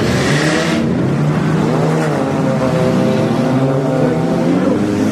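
Demolition derby car engines running and revving, one rising and falling in pitch about two seconds in, with a short burst of hiss in the first second.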